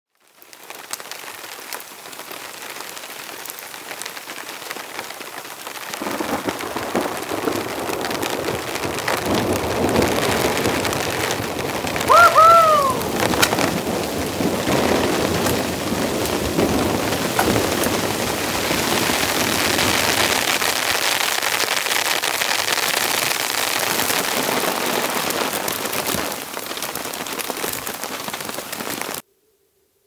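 Heavy rain falling, fainter at first and heavier from about six seconds in, with scattered sharp taps. About twelve seconds in, a short rising-then-falling tone is the loudest moment, and the sound cuts off suddenly just before the end.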